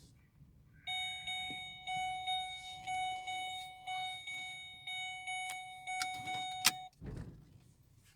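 A car's electronic door-open warning chime repeating for about six seconds, then a click and a low thud as the car door shuts, and the chime stops.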